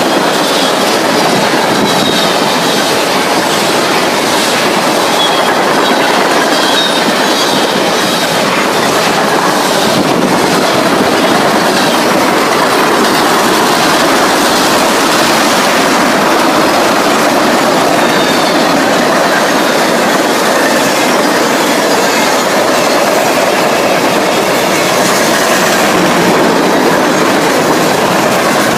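Freight cars of a fast-moving Canadian National freight train passing close by: steady, loud rolling noise of steel wheels on the rails with clickety-clack over the rail joints. A faint high wheel squeal comes and goes during the first several seconds.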